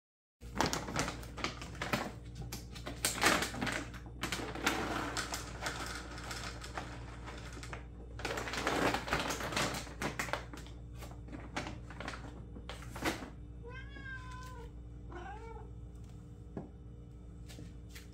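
Rustling and rapid clicking as cat food is handled and served for the first dozen seconds, then a black cat meows twice, each meow wavering up and down.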